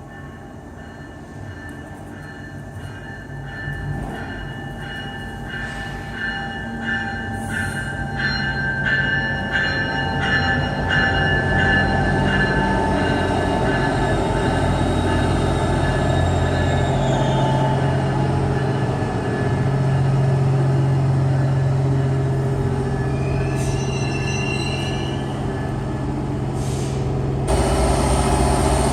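A GO Transit commuter train with an EMD F59PH diesel locomotive going by: a steady diesel engine drone grows louder as the wheels click over rail joints about twice a second. Thin high wheel squeal runs throughout, with a rising squeal a few seconds before the end.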